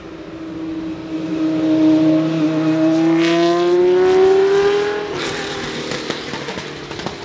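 McLaren Solus GT's Judd-derived 5.2-litre naturally aspirated V10 accelerating past at high revs. The engine note climbs steadily and grows louder, then drops in pitch and fades about five seconds in.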